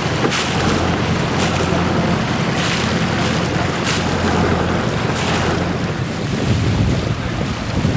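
Wind buffeting the microphone over water washing past the hull of a sailing yacht under way, with a steady low rumble and about five brief hissing surges, roughly one a second.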